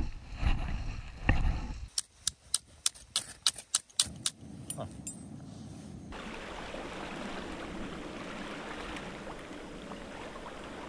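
Wind and water noise for a moment, then a quick run of about ten sharp metallic clicks, typical of the aluminium parts of a Trangia-type camping stove being fitted together. After that comes a steady rushing noise.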